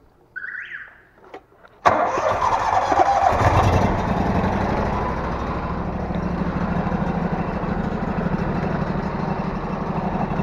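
Engine of a high-pressure drain-cleaning jetter starting abruptly about two seconds in, then running steadily with a pulsing low hum.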